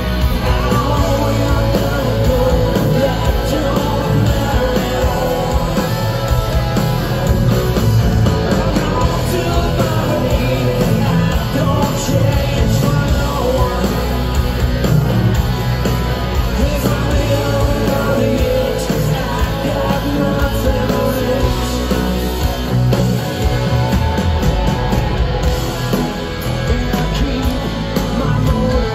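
Live rock band playing, with electric guitars and a male lead vocal.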